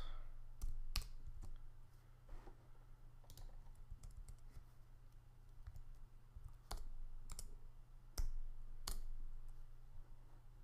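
Isolated clicks of a computer keyboard and mouse, spaced irregularly about a second or more apart, over a faint steady low hum.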